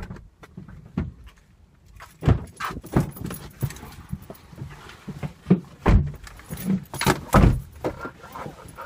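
Irregular clicks, knocks and low thuds of people getting into a car and settling into the seats, with a metal jangle of a seat-belt buckle.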